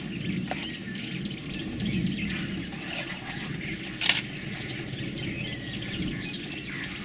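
Outdoor bush ambience with faint bird calls and one sharp snap or click about four seconds in.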